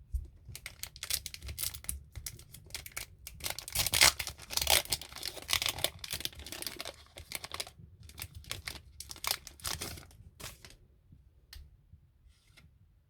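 A foil Pokémon trading-card booster pack wrapper being torn open and crinkled, in a rapid run of crackly rips that is densest about four to six seconds in and thins to scattered crinkles near the end.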